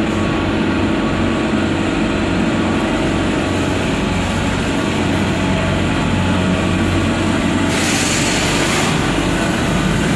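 Nissan K21 2.1-litre four-cylinder petrol/LPG engine of a Heli 1.8-ton forklift running steadily as the forklift moves. A hiss cuts in for about a second near the end.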